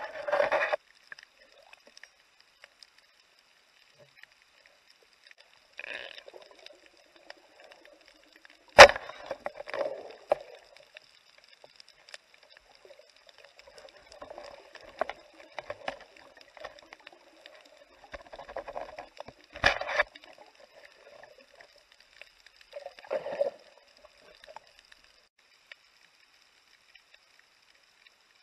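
Muffled underwater sound of a breath-hold diver moving: soft intermittent water swishes and two sharp knocks, about nine and about twenty seconds in, over a faint steady high tone.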